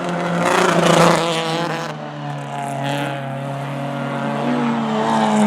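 Racing cars running at speed on a circuit: one passes loudly about a second in and its engine note drops as it goes away, while another car's engine climbs in pitch near the end.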